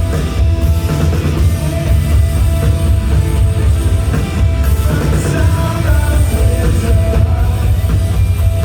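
Rock band playing live at concert volume: drums, bass and guitar, heavy in the low end, with singing faint in the mix.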